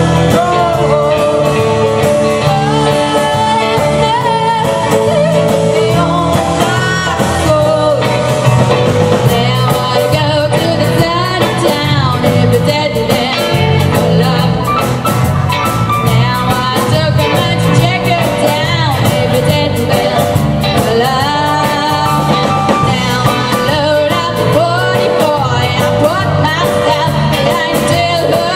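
Live band playing a song: female lead vocals over electric guitar, low bass notes and a drum kit keeping a steady beat, with the cymbals coming in more strongly about nine seconds in.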